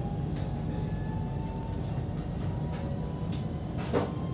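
Inside a KTM ETS electric train pulling away from the platform: a steady low running rumble with a faint motor whine slowly rising in pitch as it picks up speed. A single sharp knock comes about four seconds in.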